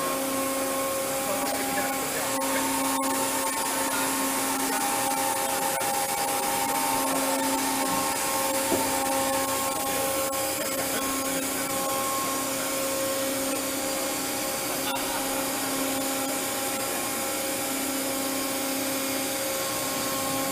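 Steady machine-shop noise around a large CNC gantry machining centre: a constant hiss with a low, steady whine that fades in and out every few seconds.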